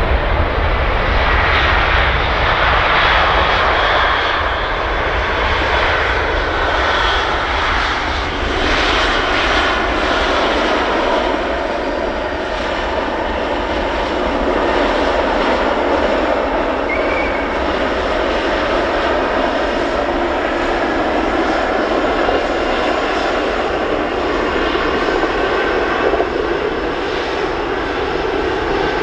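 Jet engines of an Air France Boeing 777-200ER (GE90s) running close by: a loud, steady rush with a faint high whine. It is a little louder in the first few seconds, then holds level.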